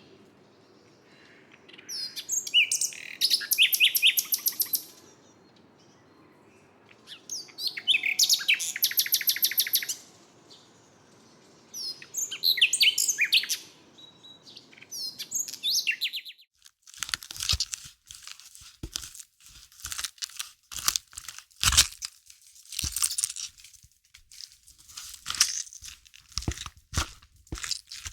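A small pet bird chirping and trilling in three quick bursts of rapid, high notes, over a faint steady hum. After about 16 seconds the chirping stops and a run of sharp crackling, crunching clicks follows.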